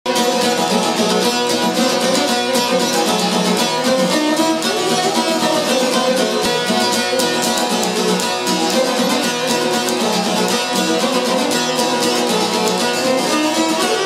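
Albanian folk ensemble playing: long-necked çifteli lutes plucked in quick running notes with violin, continuous throughout.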